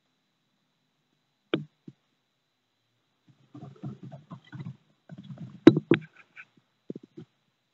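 Horsfield's tortoises' shells knocking and scraping against each other and the stones during courtship. A sharp knock comes about a second and a half in, then a run of low scuffing knocks, with two loud hard knocks close together near the end.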